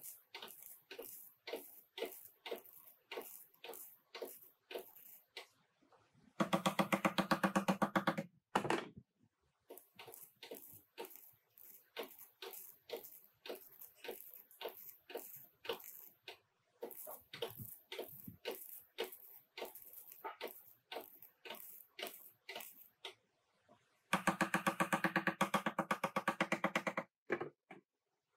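Welding on a car's replacement rear side panel. Short welding bursts come about two a second, and twice, about six seconds in and again near the end, a longer steady buzzing weld runs for two to three seconds.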